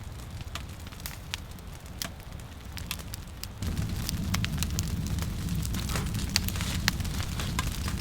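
Firewood burning with irregular sharp crackles and pops over a low steady rumble. The rumble gets louder a little past halfway through.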